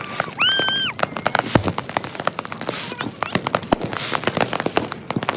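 Dense, rapid crackling and popping of many consumer fireworks and firecrackers going off at once, sped up three times. A brief high whistle-like tone sounds about half a second in.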